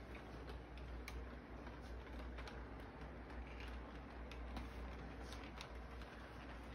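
Electric model train running along its track: irregular light clicks and rattles of the wheels over the rail joints, over a steady low hum.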